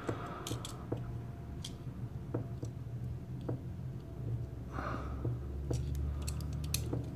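Handling of Marathon stainless steel digital calipers: scattered light clicks and taps as the slider is moved and the buttons are pressed, over a low steady hum.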